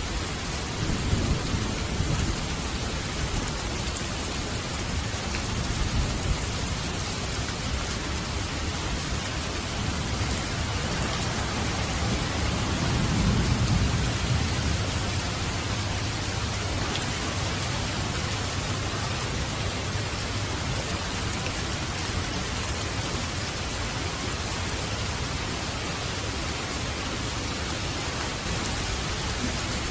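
Steady rain falling hard, with low thunder rumbling underneath; the rumble swells most strongly a little under halfway through.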